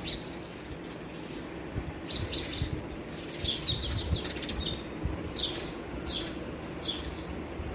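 House sparrows chirping: short, sharp chirps that fall quickly in pitch, some single and spaced out, with a quick run of them about three to four seconds in.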